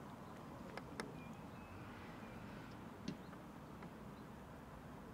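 Faint outdoor background hush with a few soft ticks, twice in the first second and once about three seconds in, and brief faint chirps a little after the first second.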